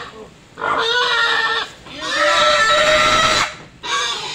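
A pig squealing loudly in three long cries as it is held and hauled up by several men, a distress squeal at being restrained.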